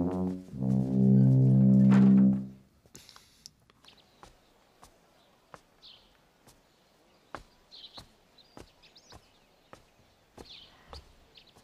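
A comic brass music sting, a held trombone-like note that stops about two and a half seconds in. After it comes faint outdoor ambience: birds chirp a few times over scattered light clicks.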